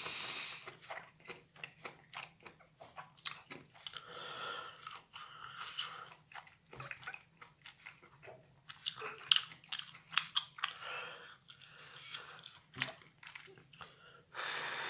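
A person chewing microwaved champignon mushrooms: many short, irregular mouth clicks and soft chewing noises.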